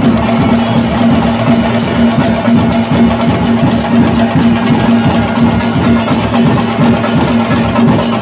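Loud music with fast, dense drumming over a steady held note.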